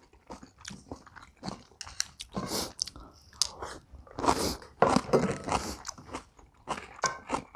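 Close-up chewing and crunching of mouthfuls of bibimbap with crisp young radish kimchi, in irregular bites and crunches.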